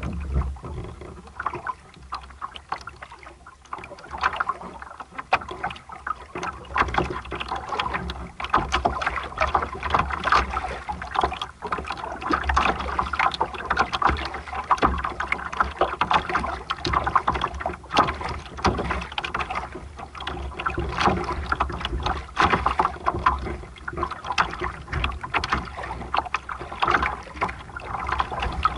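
Water splashing and rushing against the hull of a sailboat under way, irregular and choppy, a little quieter for the first few seconds. Wind buffets the microphone with a low rumble.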